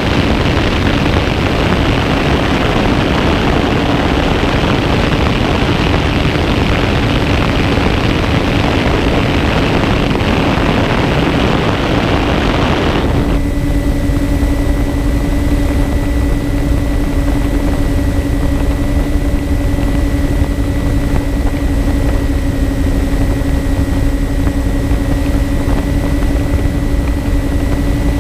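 Onboard sound of a MyTwinDream twin-motor electric RC plane in cruise: its motors and propellers hum steadily under loud wind rush. About halfway through the rushing noise drops out abruptly, leaving the steady propeller hum, a thin high whine and a low rumble.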